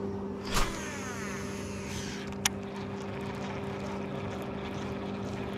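A distant engine drones steadily. About half a second in comes a swish and a whir that falls in pitch, as a fishing line is cast and peels off the reel, then a sharp click about two seconds later.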